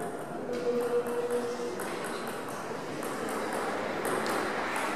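Table tennis ball clicking off the table and paddles: several sharp, irregularly spaced ticks, with two close together about four seconds in as play starts.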